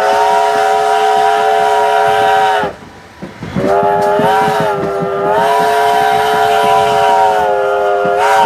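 Southern Pacific desert five-chime steam whistle on steam locomotive V&T 29, blown in two long blasts. The second blast wavers up in pitch a couple of times. The rumble of the moving train runs beneath.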